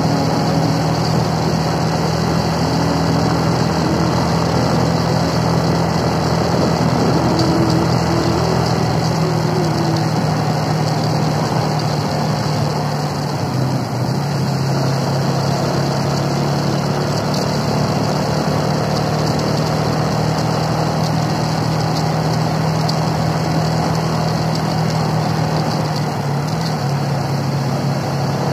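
Motorcycle engine running steadily while riding, with wind noise. Its pitch shifts slightly a couple of times.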